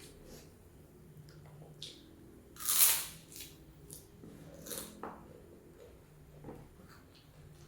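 Close-up eating of shrimp in Padang sauce: soft wet chewing and biting, with a few short louder wet bursts, the loudest about three seconds in.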